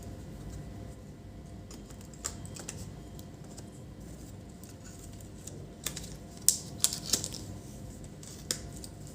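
Scattered light clicks and taps of hands handling a laptop and its plastic parts, with a cluster of sharper clicks about six to seven seconds in, over a steady low hum.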